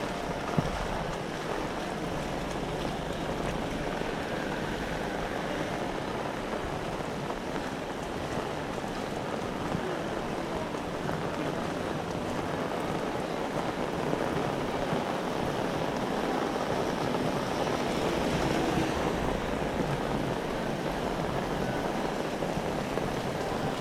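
Heavy rain with strong wind: a dense, steady hiss that swells slightly past the middle, with a single short tap just after the start.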